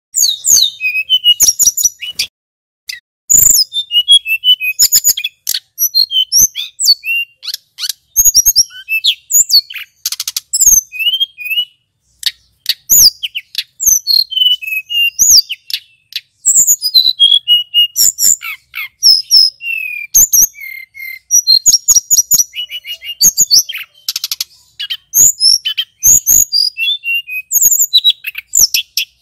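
Male hill blue flycatcher (tledekan gunung) in full song: a long, loud run of fast, varied high whistled phrases and chattering trills, broken only by short pauses.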